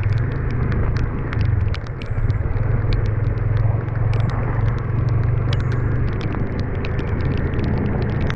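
Motorcycle engine running steadily at low road speed, with many sharp clicks and knocks from gravel and the bike jolting over a rough, wet stony track.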